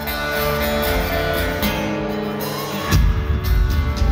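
Live band music: an acoustic guitar rings out held chords, then about three seconds in the drums and bass come in with heavy low hits and the music gets louder.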